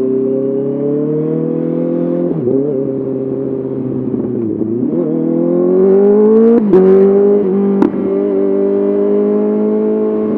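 Honda CBR 650R inline-four running through an SC-Project SC1R exhaust while riding. The revs rise slowly, dip and wobble twice, then climb again. About two-thirds of the way in the pitch changes quickly and settles into a steady run. A couple of sharp clicks or pops come near that point.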